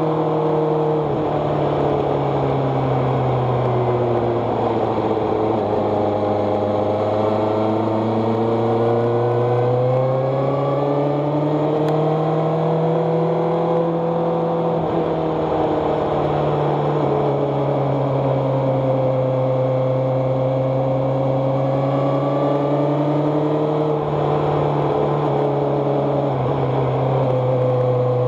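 An engine running continuously, its pitch drifting slowly down and back up several times as the revs change.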